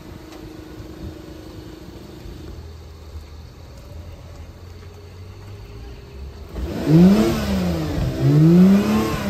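Second-generation Honda NSX's twin-turbo V6 engine, a low steady hum at first, then revved twice about two-thirds of the way in, the pitch rising and falling each time.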